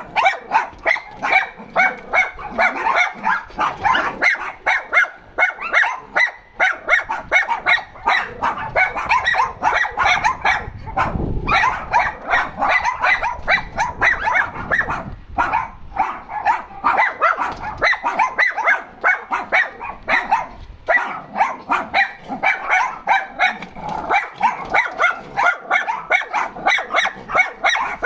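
Dogs barking in complaint: short barks in quick succession, almost unbroken, with a couple of brief pauses in the middle.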